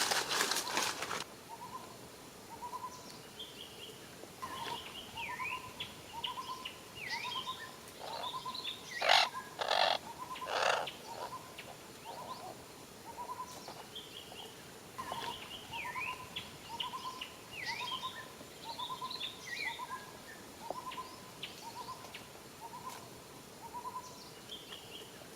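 Birds calling: a steady series of short rising notes about once a second, with higher chirps and falling whistles over them. A few louder rustling knocks come about a third of the way in.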